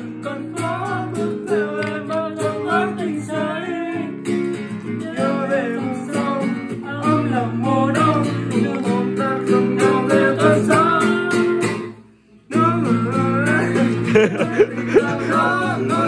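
A man singing a Vietnamese ballad, accompanying himself on a strummed acoustic guitar. The sound cuts out for about half a second around twelve seconds in, then the song resumes.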